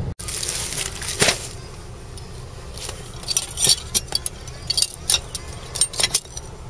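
Cloth towels rustling and steel knife blades clinking and ticking against each other and a plastic basket as wrapped kitchen knives are handled, with a scattering of short, sharp clicks.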